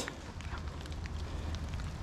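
Steady wind rumble outdoors with faint, scattered crackles.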